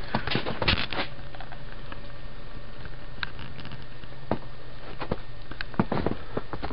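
Footsteps crunching through deep snow: a quick run of crunches at the start, then scattered single steps over a steady hiss.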